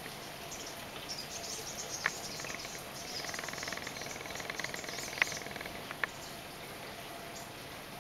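Faint open-air garden ambience with a steady hiss. A rapid chirping trill runs for a couple of seconds in the middle, and a few sharp clicks stand out.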